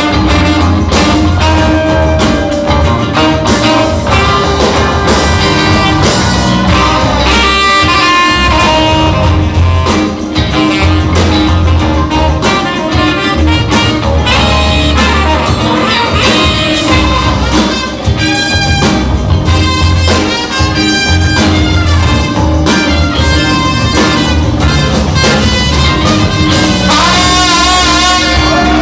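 Live band playing an instrumental passage of a song: drums and bass keep a steady beat under guitars, piano and a horn section of saxophone, trombones and trumpet.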